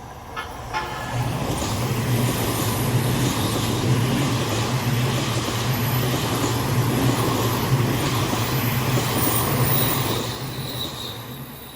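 An Odakyu Line electric train passing close by: a steady rumble of wheels on rail builds about a second in, holds, and fades near the end. A few sharp clacks come just before it builds.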